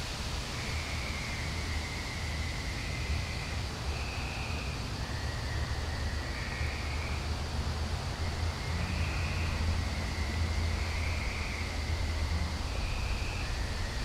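Outdoor night ambience: a steady low rumble under short, high calls from distant animals, repeating every second or so, two callers alternating at slightly different pitches.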